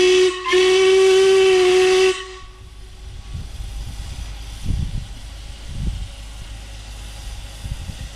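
Steam whistle of the 15-inch-gauge steam locomotive BVR 8 blowing a steady single-pitched blast. It breaks briefly and sounds again as a second blast that stops about two seconds in, leaving only a low rumble.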